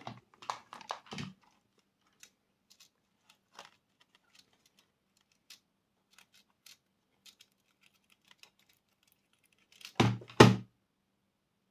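Scattered small clicks and taps of hands working on a plastic intercom handset and its wiring, with two short, much louder sounds about ten seconds in.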